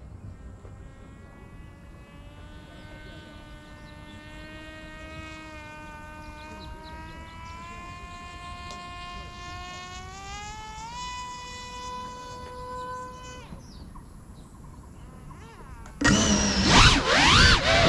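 A faint whine of small motors slowly climbs in pitch, holds steady, and stops about three-quarters of the way through. Near the end the Geprc Cinelog 35 quad's brushless motors throttle up loudly for takeoff, their pitch sweeping up and down.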